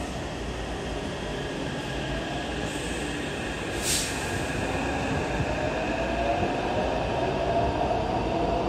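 Taipei Metro C381 train pulling out of an underground station, heard from the platform: a steady rumble, with the traction motors' whine rising in pitch and growing louder as it accelerates. A short sharp hiss comes about four seconds in.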